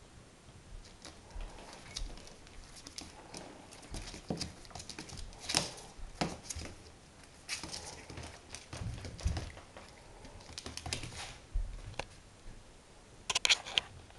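A puppy's claws clicking and paws scuffling on a laminate floor as it scampers about, in irregular bursts with a quick flurry of clicks near the end.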